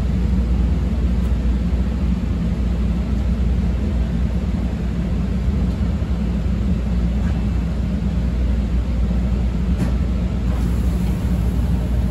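Steady low hum and rumble inside a CTA 5000-series rapid-transit car stopped at a station, with a faint click and a brief hiss near the end as the doors open.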